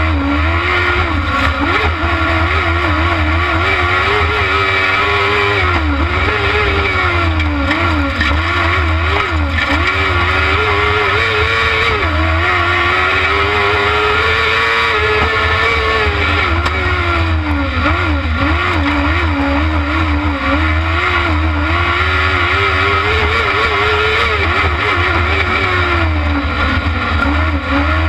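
Kart cross buggy's motorcycle engine heard onboard, revving up and dropping back again and again as it accelerates out of and brakes into the corners of a dirt track, over a constant deep rumble.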